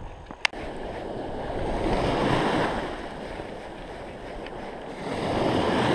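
Small Baltic Sea waves washing in the shallows, swelling twice, with wind rumbling on the microphone. A short click sounds about half a second in.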